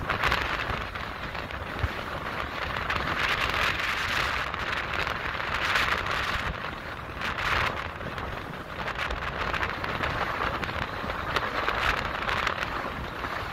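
Strong wind of over 30 knots buffeting the microphone: a low rumble under a rushing hiss that swells and eases in gusts every couple of seconds.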